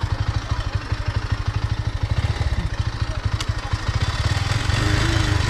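Bajaj Pulsar motorcycle's single-cylinder engine idling in an even putter, its revs rising about four seconds in.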